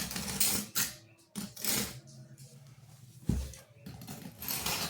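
Utility knife blade scraping dried thinset out of the grout lines between floor tiles, in short irregular scratchy strokes, with a dull knock a little past three seconds in.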